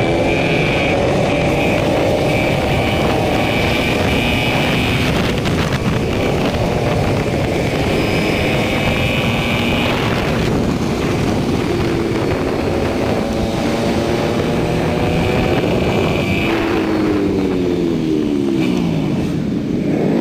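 Yamaha R15's single-cylinder four-stroke engine running at speed, heard from the rider's seat with heavy wind noise. Near the end the engine note falls steadily in pitch as the bike slows down.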